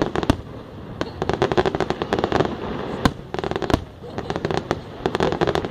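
Aerial fireworks shells bursting in rapid volleys of bangs and crackles, with one sharp single bang about three seconds in.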